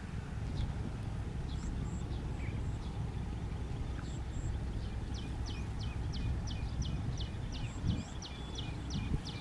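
Small Chinese-made engine of a '105' field machine running steadily at idle, a low even hum. Over it come high, quick bird chirps, about three a second in the second half.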